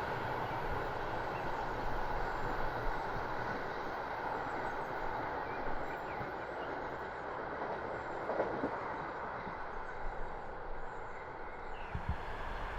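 A passenger train running along the track: a steady rumble of wheels on rail that slowly gets quieter, with a couple of low knocks near the end.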